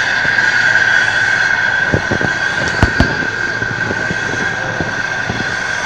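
Steady steam hiss with a high whistling tone from the standing RhB G4/5 steam locomotive no. 107, with a few sharp metallic knocks about two to three seconds in.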